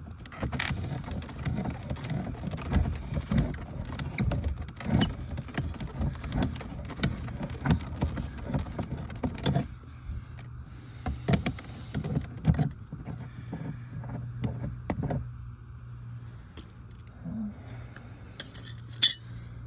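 A wrench and a stuck brass fitting clink, rattle and scrape on a hose bib's threads as the fitting is worked loose and unscrewed. The clicks come thickly for the first ten seconds, then scattered, with one sharp click near the end. A steady low hum runs underneath.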